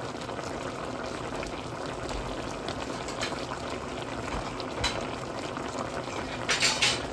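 Pork simmering and bubbling in its own released juices in a pan, a steady crackling bubble, with a few short clatters near the end.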